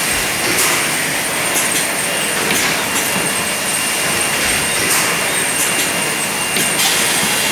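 Mineral water bottling line machinery running steadily, with a constant high whine and repeated short hisses.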